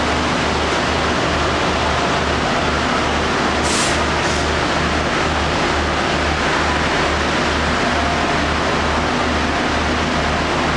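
Diesel railcar's engine idling while the train stands: a steady low throb, about two to three pulses a second, under a broad even hiss. Two short high hisses come about four seconds in.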